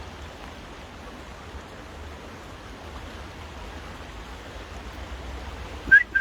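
Steady hiss of rain falling on a river. Near the end, short whistled notes begin, alternating between two pitches.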